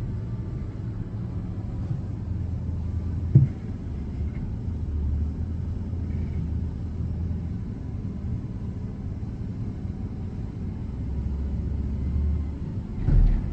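Front-loader garbage truck's engine running with a steady low sound, with a sharp knock about three and a half seconds in and a heavier thump near the end.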